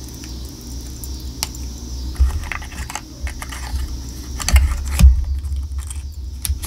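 Small plastic clicks and light rattles of lip gloss tubes and their packaging being handled, with a couple of heavier knocks about two-thirds of the way through.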